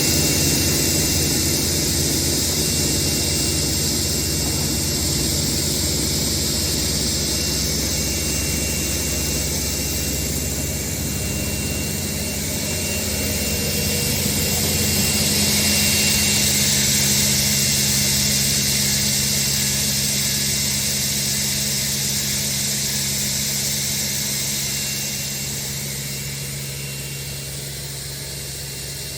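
REMA DMMC-40 sliding table saw running, its 5.5 kW main motor and blade giving a steady high whine over a low hum. The whine drops in pitch near the end as the saw winds down.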